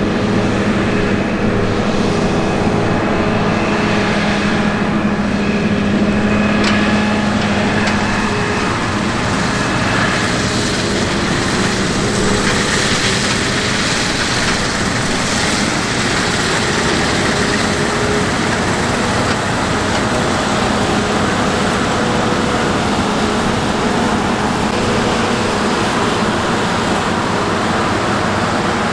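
Large farm machine's diesel engine running steadily: a constant hum under a dense rushing noise.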